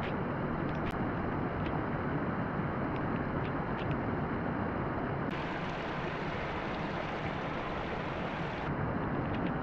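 Water spilling steadily over a low concrete weir into the stream below, a constant rushing, with a few faint small splashes.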